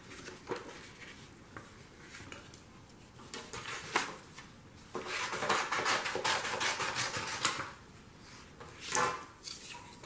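Paper and foam-board craft pieces being handled and laid on a glass tabletop: light taps and clicks, with a couple of seconds of paper sliding and rustling from about halfway through.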